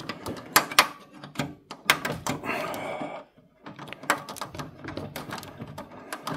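Screwdriver turning a screw into the metal expansion-slot bracket of a PCIe network card in a PC case: irregular metallic clicks and scrapes, with a short pause a little past halfway.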